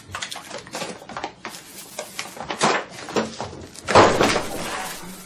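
Quick kitchen clatter while baking: a run of short knocks and clicks from bowls, utensils and eggs, then a loud whoosh about four seconds in that fades over about a second as a cloud of flour puffs up around the finished cake.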